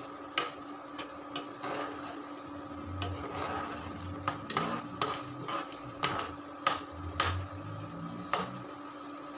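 Metal spoon stirring and mashing tomato sauce in a nonstick pan, crushing the tomato chunks, with frequent irregular clicks and scrapes of the spoon against the pan. A faint steady hum runs underneath.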